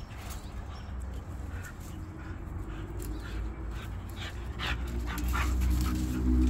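Two dogs, a Norwegian Elkhound puppy and a white dog, playing rough, with short yips and whimpers scattered through. A low rumble builds underneath and is loudest near the end.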